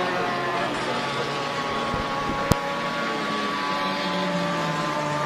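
Racing car engines running hard on a circuit, several engine notes at once, drifting slowly in pitch with one falling near the end. A single sharp click about two and a half seconds in.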